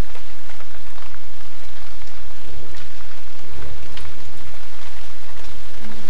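Heavy tropical rain falling steadily on rainforest foliage, an even hiss of drops with a low rumble underneath.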